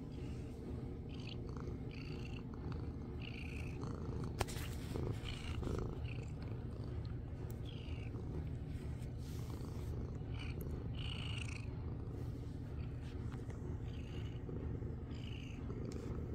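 A domestic cat purring steadily, close to the microphone, while it is stroked. Short brushing sounds come every second or two, and there is one sharp tap about four and a half seconds in.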